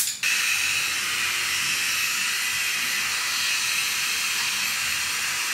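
A short hiss of aerosol hairspray right at the start, then a loud, steady hiss with a faint high whine in it.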